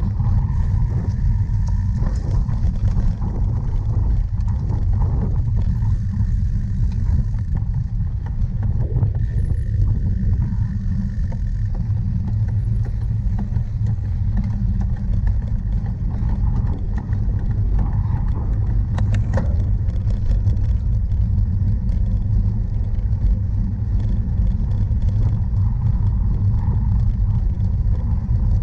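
Steady low rumble of wind buffeting the microphone and the bike rolling over rough ground during a cyclocross race, with a few light rattles.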